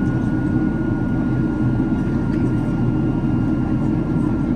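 Steady cabin noise inside a Boeing 767-300ER airliner in flight: a low, even rumble of engines and airflow, with a faint steady high tone above it.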